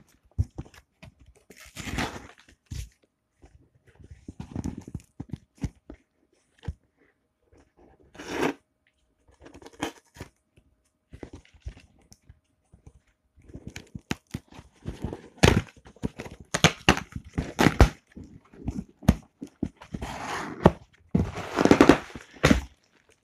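A shipping package being opened by hand: irregular tearing, scraping and crinkling of packaging with scattered knocks, growing busier and louder over the last third.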